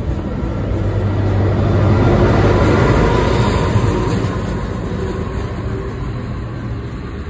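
NJ Transit commuter train passing close by: the rumble and rail noise of the passenger cars with a low hum. The noise swells to its loudest as the locomotive at the rear goes by about three to four seconds in, then slowly fades as the train pulls away.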